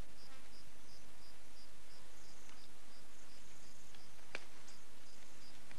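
An insect chirps in a steady rhythm, a short high chirp about three times a second, over a hiss. A sharp click sounds about four and a half seconds in, with a fainter one just after.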